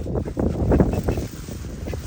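Wind buffeting the microphone, a rough, gusty rumble.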